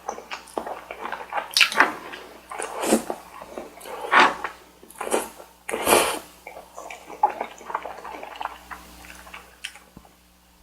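Close-miked eating sounds: wet, squishy chewing and mouth noises at an irregular pace, with several louder wet smacks in the first six seconds.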